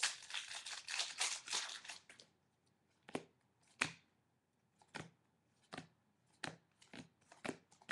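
Foil wrapper of a Prestige football card pack crinkling as it is torn open for about two seconds, then the cards being flipped one by one, each giving a short, sharp flick, about seven in the last five seconds.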